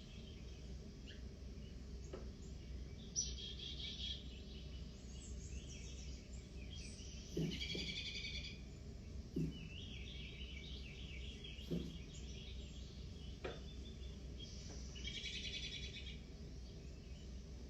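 Recorded birdsong playing from a TV bird video: bursts of fast, high chirping trills every few seconds with scattered single chirps, over a steady low hum. A few short soft knocks come in between.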